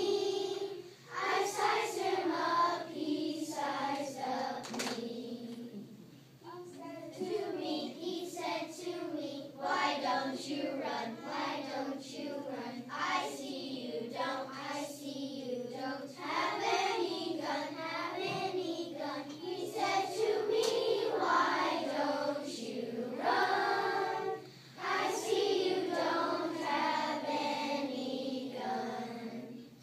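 Children's choir singing a song together, the melody moving in phrases with brief pauses between them.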